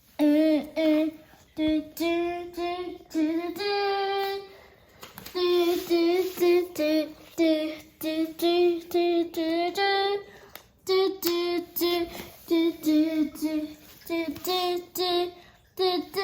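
A child singing a tune unaccompanied, in short phrases of held notes with brief breaks between them.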